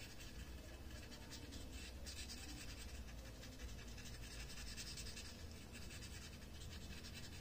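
Brown colouring pencil scratching on paper in quick, faint back-and-forth strokes as a letter outline is shaded in.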